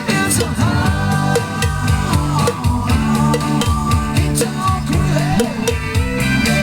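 Rock music with singing, guitar and drums, keeping a steady beat.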